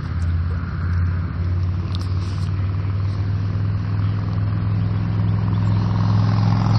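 Steady low drone of a running motor.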